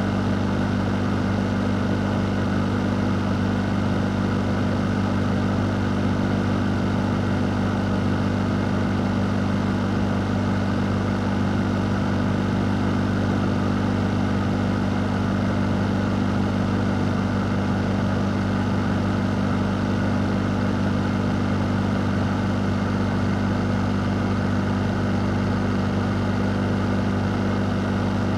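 A fan running steadily: an even rush of air over a constant low motor hum, with no change in speed or level.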